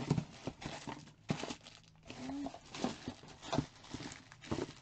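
Plastic bags rustling and crinkling, with scattered light knocks and clicks, as bagged catalogue items are rummaged through in search of one product.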